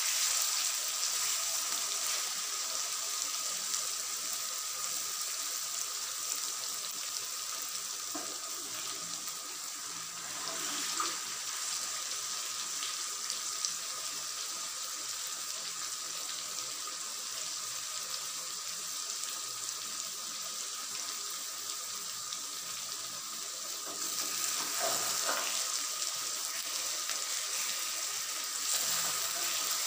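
Fish curry simmering in a pan on the stove: a steady hiss of the gravy and oil bubbling. A spoon stirs through it briefly near the end.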